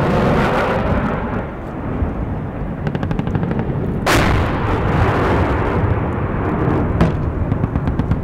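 Gunfire in a firefight: a loud shot or blast about four seconds in with a long echoing tail, a sharper crack about three seconds later, and a quick run of shots near the end, over a steady noisy background.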